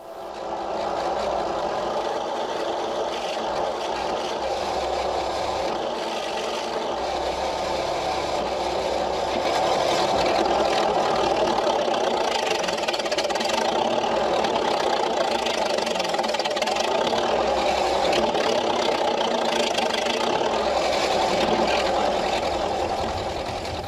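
Bulldozer's diesel engine running steadily while it works, getting a little louder about ten seconds in.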